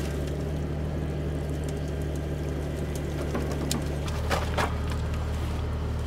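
A vehicle engine running steadily with a low drone, which changes slightly about four seconds in. Light clicks and knocks sound over it.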